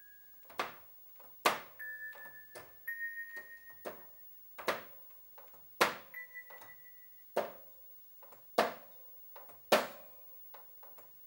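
Commodore Sound Expander FM synth played one note at a time from a five-octave keyboard, about one note a second, each with a sharp percussive attack that fades. A few held notes step upward in pitch.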